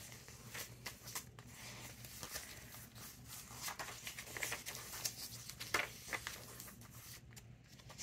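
Paper pages of a thick handmade junk journal being turned and unfolded by hand: faint, scattered rustles and soft crinkles of paper.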